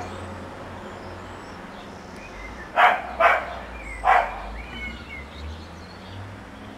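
A dog barking three times: two quick barks about three seconds in and a third about a second later. Faint bird chirps sound in the background.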